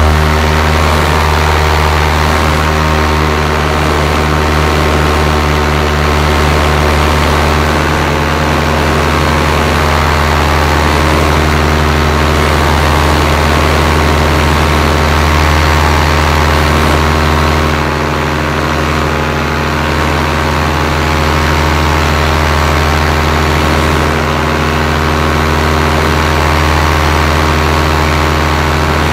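Paramotor's backpack engine and propeller running steadily in flight, with a dense, even engine hum. The power eases off slightly about two-thirds of the way through.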